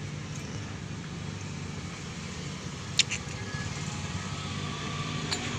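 Honda Beat fuel-injected scooter's single-cylinder engine running steadily, with one sharp click about three seconds in.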